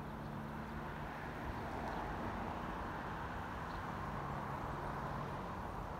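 Steady outdoor town background noise of distant traffic, with a low engine hum that comes and goes.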